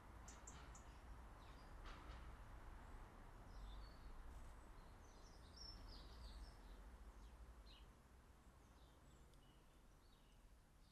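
Faint, scattered chirps and twitters of small garden birds over a low, steady background rumble.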